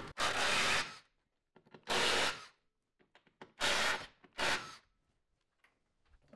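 Cordless power driver running in four short spurts, each about half a second, backing out the Torx screws that hold the car's plastic engine undertray.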